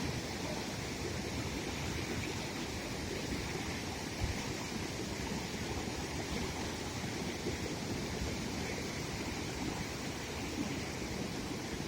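Heavy rain with running floodwater, a steady even rush of water without breaks.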